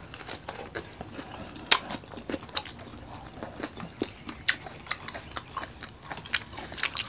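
People eating close to the microphone: chewing and biting, heard as irregular clicks and mouth noises, with a sharper click about a second and a half in.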